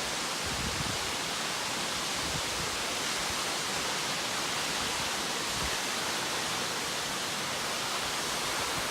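Fairy Falls waterfall: the steady rush of falling water, an even hiss that does not change.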